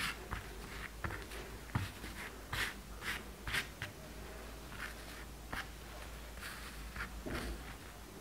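Hands brushing and smoothing a saree's cloth and tassels on a mat: soft, irregular rustles and light brushing strokes, a few short ones every second or so.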